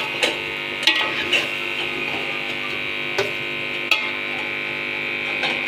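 A metal spoon stirring chicken and masala in an aluminium pot, striking the pot with several sharp clinks, over a steady buzzing hum.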